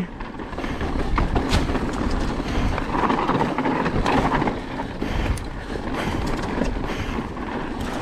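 Mountain bike descending a dirt trail: steady rolling tyre and rattle noise, with a few sharp knocks from the bike over rough ground.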